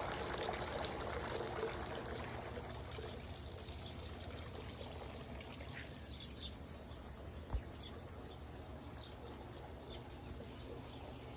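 Water trickling and splashing down the tiers of a three-tier garden fountain, loudest at first and fading over the first few seconds. A few faint bird chirps come later, and there is one brief thump about seven and a half seconds in.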